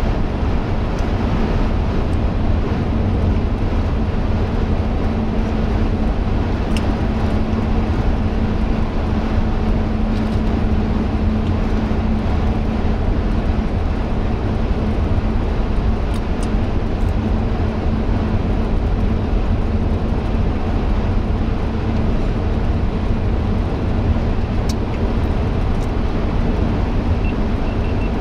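Steady road and engine noise inside a moving car's cabin: an even low rumble with a steady hum, and a few faint ticks.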